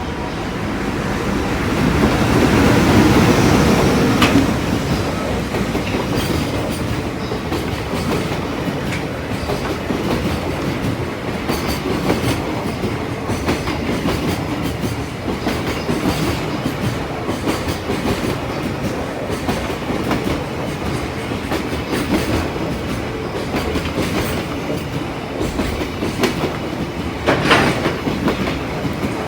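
A freight train passing close by. The locomotive goes by loudest a few seconds in, then a long string of container wagons rumbles past with a steady clickety-clack of wheels over rail joints, and a brief louder clatter near the end.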